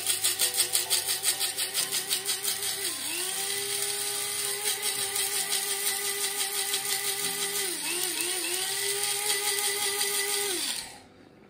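Electric blade spice grinder running on whole coriander seeds, fennel seeds, cumin seeds and cloves: a steady motor whine with a fast rattle of the seeds at first that smooths out as they break down, the pitch dipping briefly twice, then the motor cutting off near the end.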